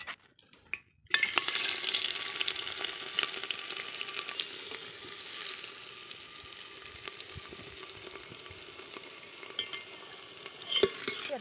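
Chopped onions hitting hot oil in a steel pot: a loud sizzle starts suddenly about a second in, then settles into a steady frying crackle that slowly eases. A steel ladle stirs and clinks against the pot near the end.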